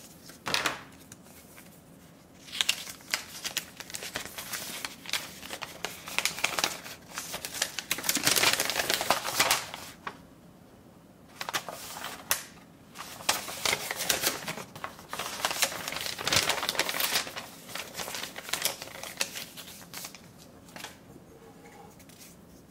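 Paper warranty leaflet rustling and crinkling as it is handled, in two long stretches of irregular bursts with a short pause between them. A single sharp knock sounds about half a second in.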